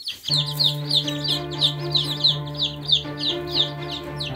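Ducklings peeping: a quick run of short, high, falling peeps, about three or four a second. Soft background music with held notes plays under them.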